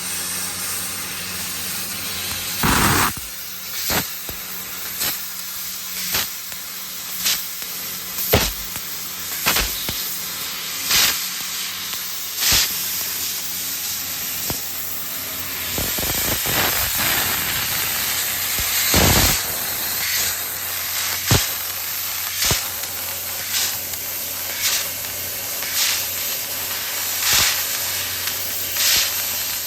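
CNC laser cutter cutting 3 mm galvanized iron sheet: a steady hiss broken by short, loud bursts about every second or so, over a faint low hum.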